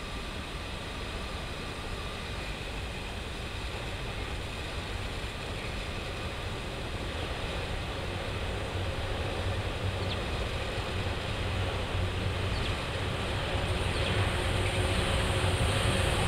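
PKP ET41 twin-section electric locomotive hauling a train of Talbot hopper wagons approaching, its running noise growing steadily louder. In the last couple of seconds a steady hum and whine from the locomotive comes in over the rumble.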